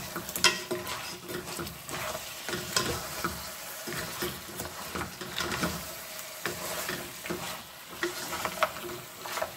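Wooden spatula stirring lamb chops and dry ground spices in an aluminium pot, with irregular scrapes and knocks against the pot, while the meat sizzles in its oil as the spices fry.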